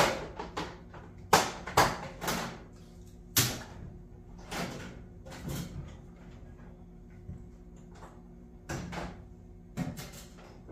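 Tools and toolbox parts being handled and set down on a workbench: a string of sharp knocks and clatters, several in the first few seconds, then fewer with quiet gaps, and two more near the end.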